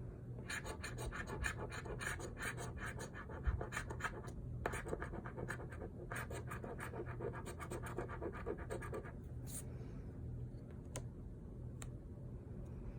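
Scratch-off lottery ticket being scratched: rapid, repeated scraping strokes across the coating that stop about nine seconds in, followed by only a few faint scrapes and clicks.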